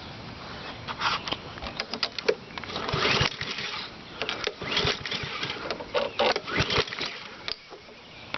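Several hand pulls on a lawn mower's recoil starter cord, each giving a short burst of cranking as the engine turns over without catching. The engine does not start because the choke is off.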